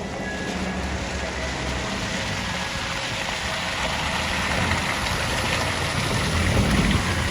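Heavy truck engine running as the truck drives by on a snowy, slushy street, with a hiss of tyres and spray that swells and is loudest near the end.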